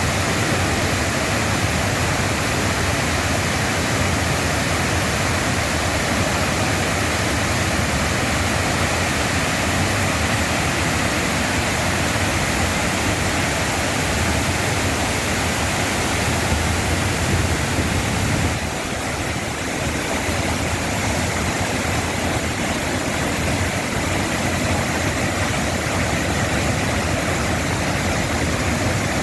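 Waterfall pouring steadily, a dense, even rush of water with no let-up; the level dips slightly for a moment about two-thirds of the way through.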